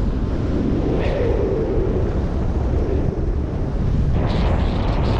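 Wind buffeting a GoPro microphone on a jumper flying under an open parachute canopy: a steady low rumble, with a brief rise of brighter hiss about a second in and again near the end.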